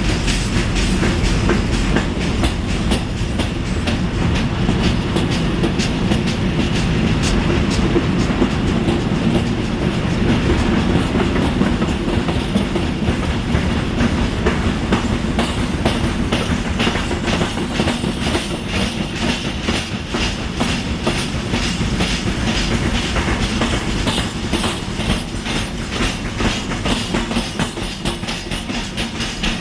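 Freight train wagons rolling past with flat spots on their wheels ('square wheels'), hammering the rail with many rapid knocks over a steady rumble. The knocking is the sign of wheel flats worn in by wheels that slid braked or stood parked a long time.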